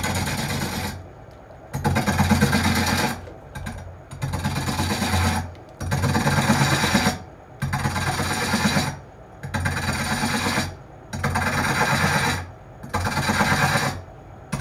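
Hook tool cutting a wooden cup blank spinning on a Japanese-style lathe, in a steady rhythm of about eight cuts, each a little over a second long with a short pause between. Each cut is a loud scraping hiss over a low hum.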